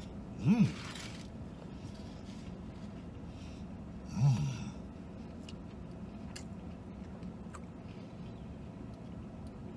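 A man's closed-mouth "mmm" hums of enjoyment while chewing a mouthful of spicy fried chicken sandwich. There are two: a short rising-then-falling one about half a second in and a lower falling one about four seconds in. A few faint clicks follow, over a steady low hum.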